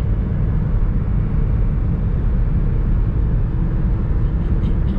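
Steady low rumble of a moving car heard from inside its cabin: road and engine noise while driving.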